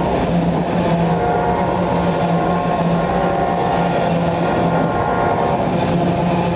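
CSX autorack freight train rolling past close by: a loud, steady rumble of wheels on rail with a steady whine of several tones over it.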